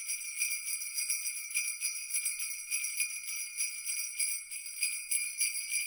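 Sleigh bells jingling, shaken steadily in a quick rhythm of about four shakes a second.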